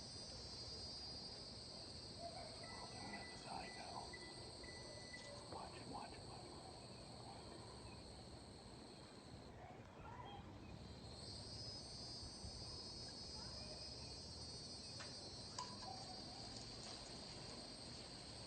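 Faint chorus of insects trilling steadily, high-pitched. It drops out for a couple of seconds about halfway through, then resumes.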